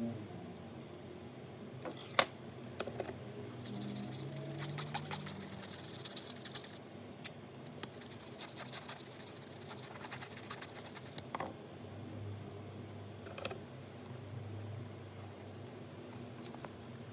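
Small hand tools clicking and tapping on a phone's parts, with two stretches of light scraping of about three seconds each.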